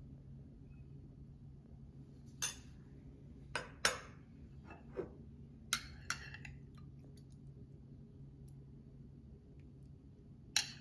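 A metal spoon clinking against glass and ceramic dishes while serving. Several short, sharp clinks come in the first half and one more near the end, over a low steady hum.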